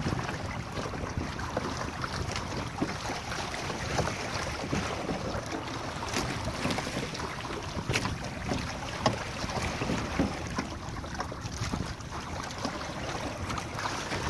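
Choppy water splashing and slapping against the hull of a Hobie sailing kayak under way, in irregular uneven slaps, with wind buffeting the microphone.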